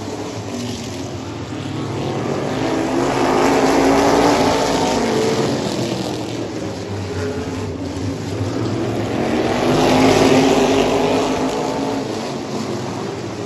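Race car engines running hard on an oval track, the sound swelling loud twice, about six seconds apart, as the cars come past.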